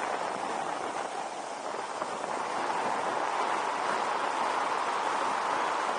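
Steady rushing noise of a motorbike riding along a road: mostly wind over the microphone, with road and engine noise beneath and no clear engine note.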